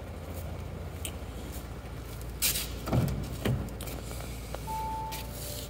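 Driver's door of an Audi S5 Sportback being opened: the latch clicks and the door swings open with a couple of knocks about halfway through, then the car gives one steady electronic chime near the end.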